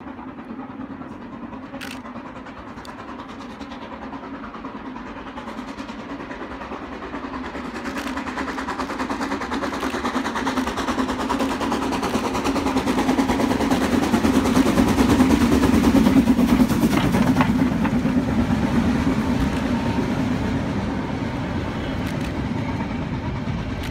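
Harz narrow-gauge steam train approaching and passing, growing steadily louder to a peak a little past the middle, then its carriages rattling by on the rails.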